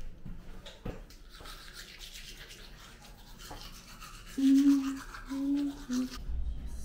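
Manual toothbrush scrubbing teeth, a soft irregular brushing, then three short hummed voice notes through a mouthful of toothbrush a little past the middle.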